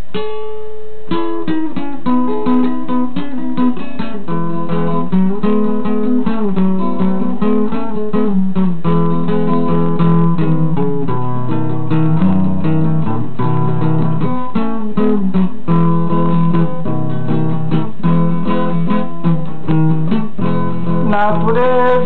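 Acoustic guitar played solo as a song's introduction: chords picked and strummed in a steady rhythm, getting under way about a second in.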